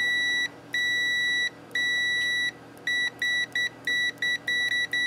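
Continuity buzzer of a Victor VC921 (Autool DM mini) pocket multimeter beeping as the test probes make and break contact. There are three beeps of about a second each, then quick short beeps at about four a second. The tone is clean and loud, not scratchy.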